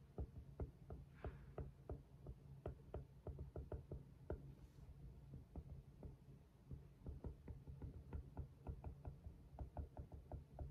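A run of light, irregular taps, several a second, over a faint steady low hum.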